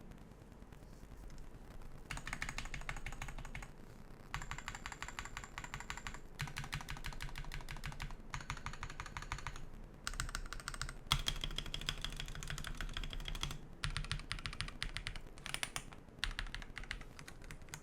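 Akko 5075S mechanical keyboard with linear switches, a metal plate and a tape mod, typed on rapidly in a series of bursts with short pauses between them: a typing sound test of the modded board.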